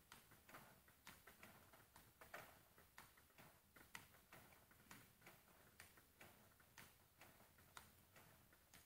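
Table tennis balls clicking in a fast practice drill against a ball-throwing robot: quick, sharp ticks of the ball bouncing on the table and striking the paddle, several a second, in an even rhythm.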